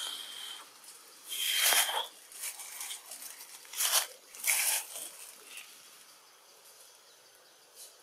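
Leaves and branches rustling in a few short bursts as macaques shift about in a tree, with a brief high, steady tone heard twice in the first two seconds. It grows quiet after about five seconds.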